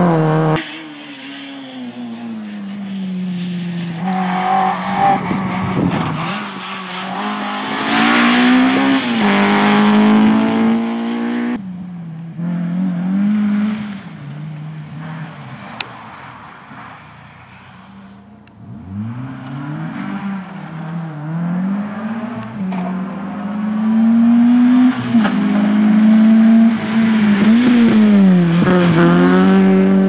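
Rally car engines revving hard through the gears as the cars drive past one after another, the pitch climbing and dropping back again and again with each shift, along with tyre noise on the road. The sound cuts abruptly between cars, once just after the start and again about twelve seconds in.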